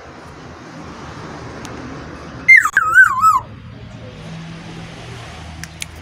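Black-naped oriole giving one loud fluty whistled phrase about halfway through, sliding down from a high note and wavering over a few notes, over a steady background hiss.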